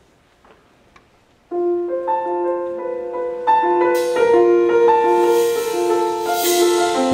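Grand piano opening a slow jazz piece alone, its notes entering suddenly about a second and a half in and ringing out. About four seconds in, a soft cymbal shimmer joins under the piano and swells.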